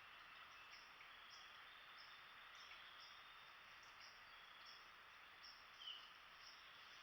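Faint outdoor ambience of insects: a high chirp repeating a little under twice a second over a steady high hiss. One short, slightly louder chirp comes about six seconds in.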